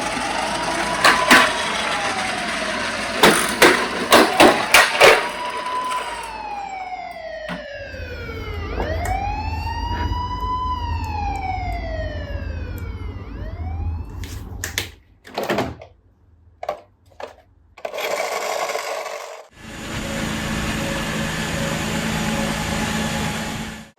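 An emergency-vehicle siren wailing, sliding smoothly up and down in pitch every few seconds, with a run of sharp clicks over it. About fourteen seconds in the siren stops and a few separate knocks follow. Then a steady rushing noise takes over.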